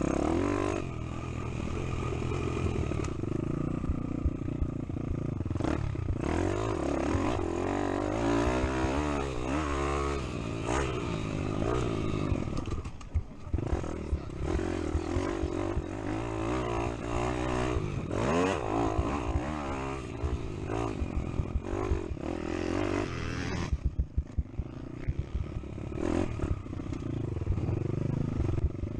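Pit bike engine heard onboard, revving up and down as the throttle is opened and shut, with clattering knocks from the bike over bumps, several of them in the last few seconds.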